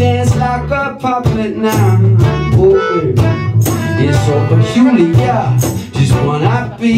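Live acoustic pop band playing: a male lead singer over acoustic guitar, electric bass and a steady percussion beat.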